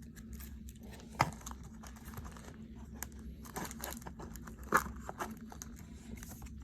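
Crinkling and rustling of baseball trading cards and their pack being handled, with two sharp snaps, one about a second in and one past the middle, over a low steady hum.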